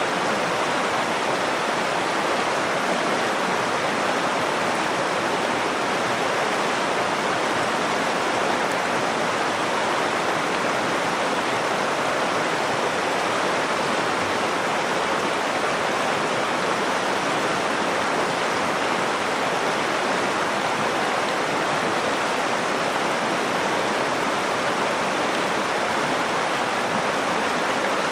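Nakdong River water flowing, a steady, even rush with no break or change.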